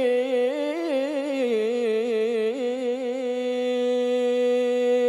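A male qari's voice reciting the Quran in melodic tajwid style, drawing out the end of the verse 'wallahu yuhibbul muhsinin' in wavering ornamented turns. About three seconds in, it settles into one long, steady held note.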